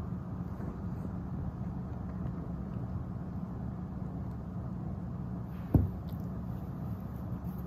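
Steady low background rumble, with a single short thump about three-quarters of the way through as the cat pounces on a wand toy and pins it to the rug.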